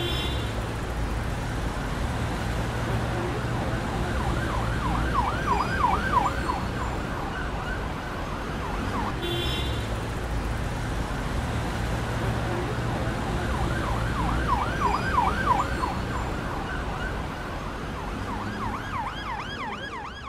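Electronic siren yelping in three short spells, a fast up-and-down wail several times a second, over a steady rumble of street traffic.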